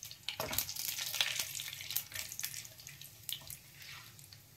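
Cumin seeds and whole spices sizzling and crackling in hot mustard oil in a kadhai as they are stirred with a wooden spatula, being tempered (bhuna). The crackle is busiest in the first half and dies down after.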